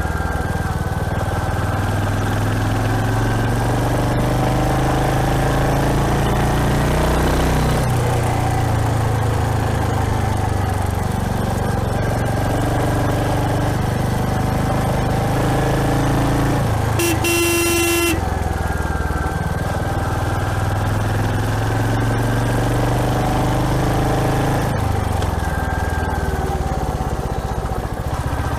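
Royal Enfield Hunter 350's single-cylinder engine running under way, its note rising and dropping several times with throttle and gear changes, over a steady rush of wind and road noise. A horn sounds once for about a second, a little past halfway.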